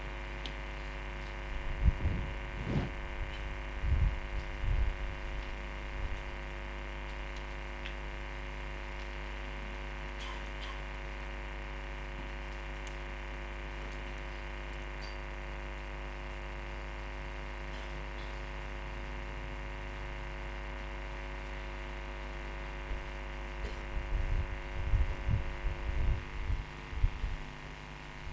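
Steady electrical hum from the microphone and sound system, with a stack of steady tones. Dull low thumps and knocks, as of things being handled near the microphone, come a couple of seconds in and again near the end.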